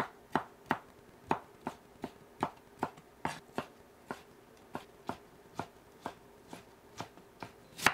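Kitchen knife dicing peeled tomato on a wooden cutting board: a steady run of sharp knocks as the blade hits the board, about two to three a second.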